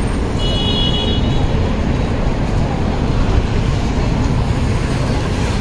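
Busy city street traffic noise, steady throughout, with a brief high-pitched squeal about half a second in.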